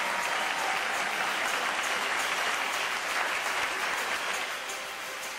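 Audience applauding, a dense steady clapping that eases off near the end as faint music comes in.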